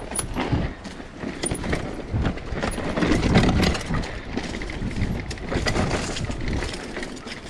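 Mountain bike riding over a rough dirt trail: tyres rumbling on the ground, with irregular clicks and rattles from the bike jolting over bumps.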